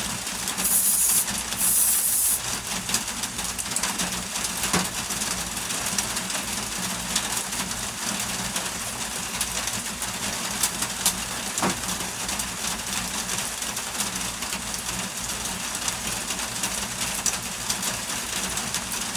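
Steady rain. In the first couple of seconds an aerosol can of Loctite spray adhesive gives two short hissing sprays, with a few faint clicks later on.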